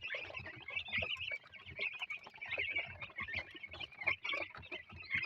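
A flock of young chicks, about two weeks old, peeping continuously, with many short high chirps overlapping.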